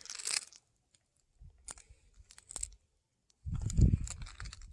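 Footsteps crunching and rustling over dry leaves and gravel: a rustle at the start, a few scattered crunches, then heavier low thumping steps from about three and a half seconds in.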